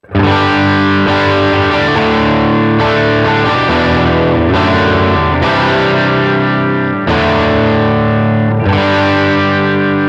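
Overdriven electric guitar run through a Line 6 modeler with effects, playing held chords that ring out and change every second or two.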